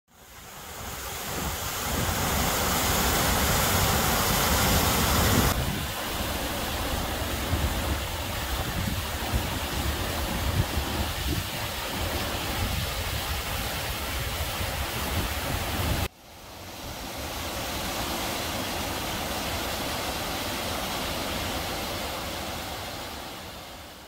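Steady rush of water from a wide, low waterfall spilling over a ledge of basalt columns. It breaks off abruptly twice, at about five and sixteen seconds in, and fades out at the end.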